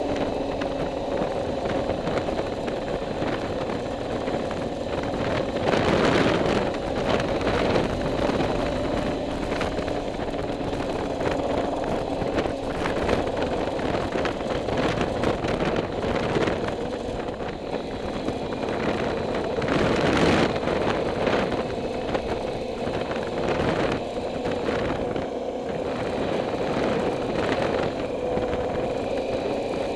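Vehicle engine running steadily under way, heard with road and wind noise; the noise swells briefly twice, about six seconds in and again near twenty seconds.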